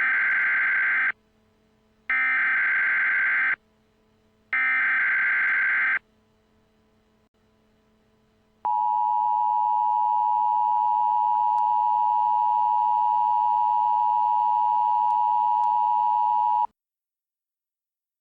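Emergency Alert System signal: three short bursts of warbling data header, each about a second and a half with a pause between, then a steady attention tone for about eight seconds that cuts off suddenly.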